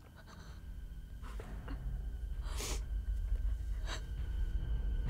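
A woman's sharp, shaky breaths and gasps, about four of them, over a low rumbling drone that grows steadily louder.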